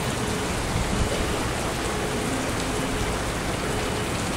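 Heavy downpour of rain pouring onto wet pavement, a steady, even hiss of splashing drops.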